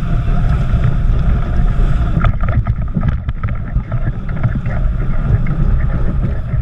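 Heavy wind buffeting on the microphone of a sailing yacht driving hard through choppy water, with the rush of the hull and waves underneath. From about two seconds in, a run of short sharp crackles cuts through.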